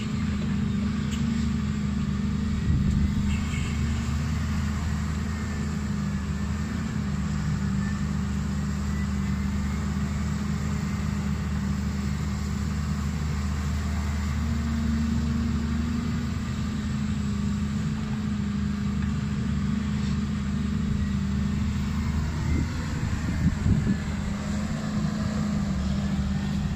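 Heavy diesel engines of a Volvo crawler excavator and a ten-wheel dump truck running steadily with a low drone, and a few brief knocks as the excavator works.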